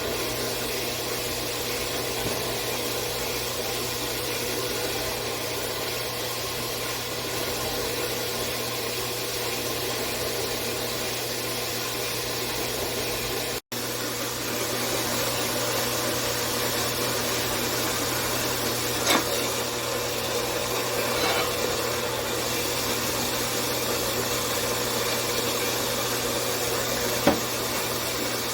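Small 4x6 horizontal metal-cutting bandsaw running steadily, its motor humming and the blade working through steel axle stock. Two sharp clicks come in the second half.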